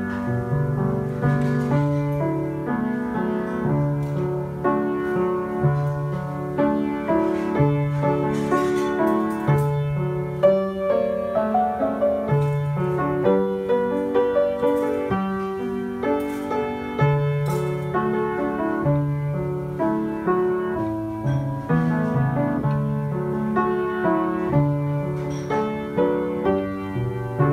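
Solo piano, played with both hands: a hymn arrangement with a melody over low bass notes that change every second or two.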